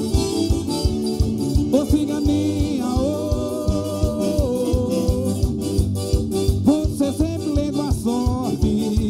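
Forró band playing live: accordion melody over a steady zabumba drum beat, with a quick high ticking rhythm on top.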